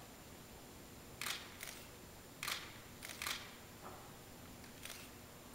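Camera shutters clicking, about six short clicks scattered singly and in pairs, over a faint hush.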